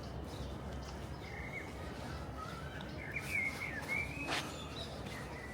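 Small birds chirping in short twittering phrases over a steady low background rumble, with one sharp click about four seconds in.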